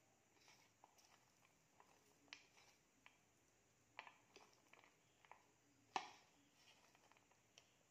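Near silence with faint, scattered taps and clicks from sliced red onion being handled on a plate and dropped into a plastic bowl of curd. There is one sharper click about six seconds in.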